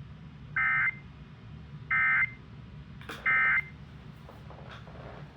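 Emergency Alert System end-of-message data bursts: three short, identical buzzy digital bursts about a second apart, the EOM code that closes the flash flood warning broadcast.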